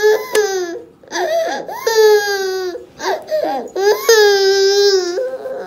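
A toddler crying: three long, high wails, each about a second and falling in pitch at the end, with shorter sobs between them. She is upset out of worry for her puppy at the vet.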